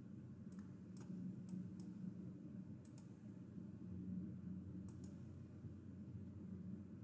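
Faint computer mouse clicks advancing presentation slides: a few sharp ticks, some in close pairs, over a low steady hum.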